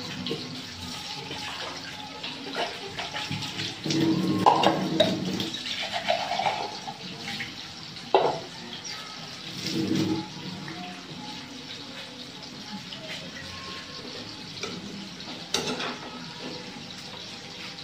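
A pot of squash and eggplant cooking on the stove, giving a steady watery bubbling hiss. A few sharp knocks, like a utensil against the pot, come at about eight seconds and again near fifteen seconds.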